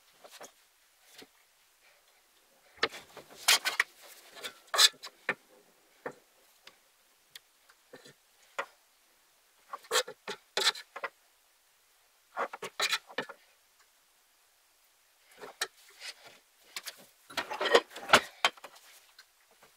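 Household objects being handled and set down while tidying a room: irregular clatters and knocks in short clusters, with brief quiet gaps between them.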